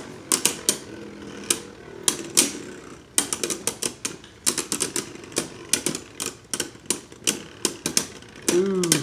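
Two Beyblade Burst spinning tops clashing inside a plastic stadium under a clear cover: irregular sharp clacks as they hit each other and the stadium wall, sometimes several in a quick run.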